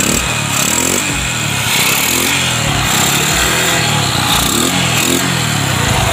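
Yamaha STX125's single-cylinder engine running, its pitch rising and falling several times as it is revved. It runs steadily after a new regulator and CDI replaced the burnt-out, overcharging originals.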